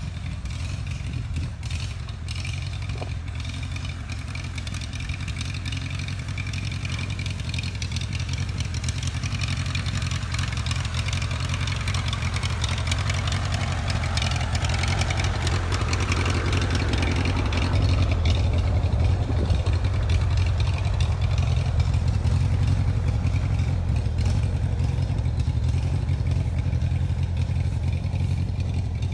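An engine running steadily with a low rumble that grows slowly louder over the first half or so, then holds.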